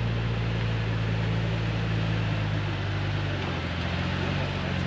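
Toyota Tacoma's engine running at low revs while crawling over rocks, a steady low hum that shifts slightly in pitch about three and a half seconds in.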